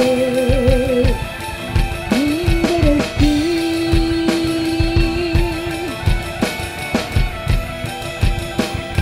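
Live band playing a song: a drum kit keeps a steady beat of about two hits a second under guitar, with a long wavering held note that stops about a second in and another long held note from about two to six seconds in.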